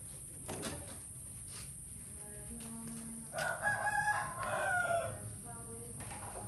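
A rooster crows once, one long call of about two and a half seconds starting about halfway through.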